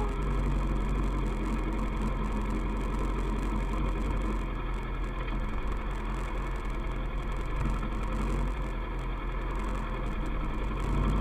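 Kawasaki ER-6f's parallel-twin engine running at a steady, even note, as on a cruise.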